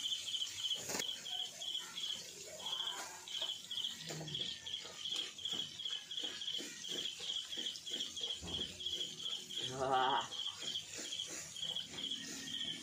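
Chicken pieces deep-frying in a wok of hot oil over a wood fire, sizzling, with a metal skimmer stirring them partway through. A rapid, high, even chirping runs on behind it, and a brief voice-like sound comes about ten seconds in.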